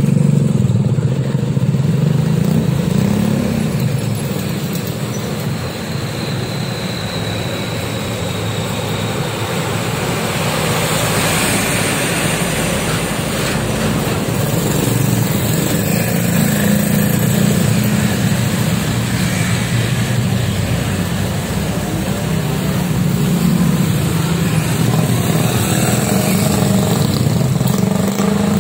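Steady road traffic passing close by: a stream of small motorcycles and scooters mixed with cars, engines humming continuously, with a truck going past about halfway through.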